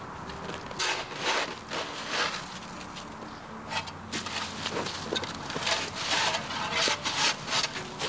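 A shovel chopping into crusted old snow and ice clumps and scraping through them, in a string of irregular strikes and scrapes.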